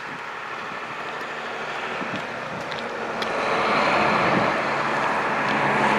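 Motor vehicle engine and road noise, steady at first and growing louder from about halfway through, as of a vehicle running or driving nearby.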